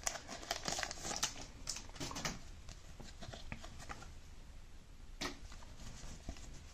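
Plastic wrapper of a trading-card pack crinkling and tearing as it is opened, then the cards being handled and leafed through. The crackling is densest in the first couple of seconds and thins out after.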